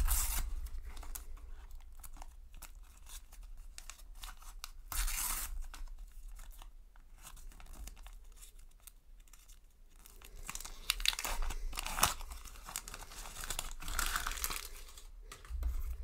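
Foil Euro 2020 Panini sticker packet being torn open by hand, its wrapper crinkling, in irregular flurries of tearing and crackling, loudest about five seconds in and again around eleven to fourteen seconds.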